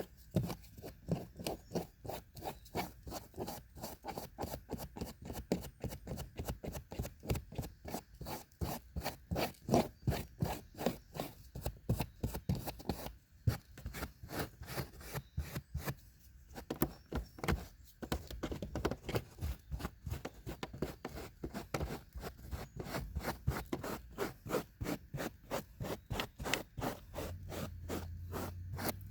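A brush scrubbing car carpet in rapid back-and-forth strokes, about three or four a second, pausing briefly twice midway.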